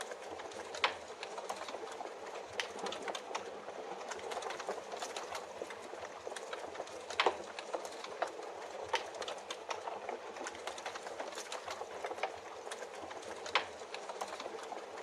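Fireplace crackling, with many small snaps over a steady hiss of rain. Sharper pops stand out about a second in, near the middle and near the end.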